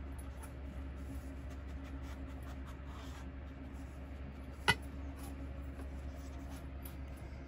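A dog sniffing and nosing at upturned plastic bowls, with soft short sniffs over a steady low hum, and one sharp click a little past the middle.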